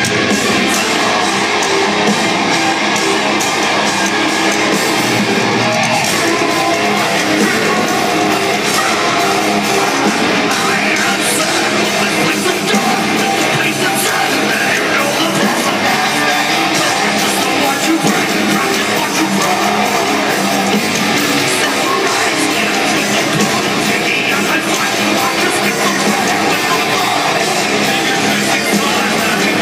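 A live metalcore band playing heavy rock music: electric guitars, bass and drums with a singing voice, heard from the audience at a steady, loud level.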